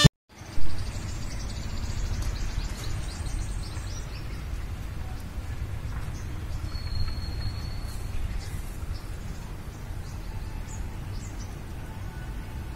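Outdoor wind rumbling low and steady on the microphone, with faint bird chirps now and then. A sharp knock about half a second in.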